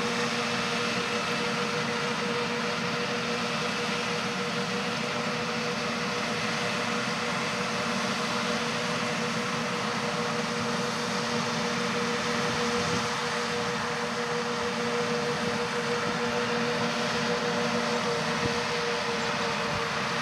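John Deere 8R-series tractor and the Amadas pull-type peanut combine it is pulling, running steadily while digging and picking peanuts: a constant mechanical drone with a steady hum.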